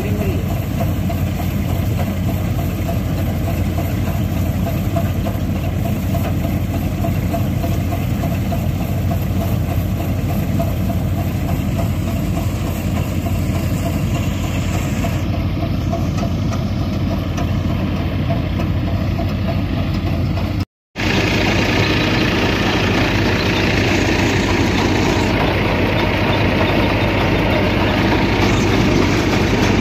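Tractor engine running steadily while it drives a groundnut thresher, giving a continuous engine drone mixed with the thresher's churning. The sound cuts out for an instant a little over two-thirds through, then returns fuller.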